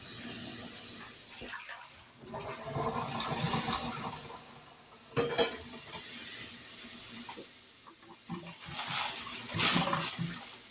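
Water running from a kitchen tap into a cooking pan, swelling and easing off in waves, with a metal pan clank about five seconds in.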